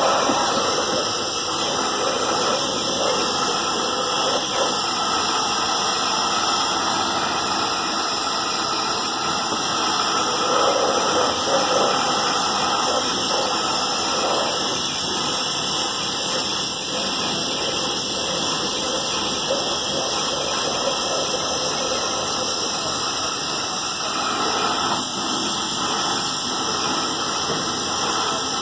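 Gas welding torch flame hissing steadily as it heats a metal lota (water pot) to join it.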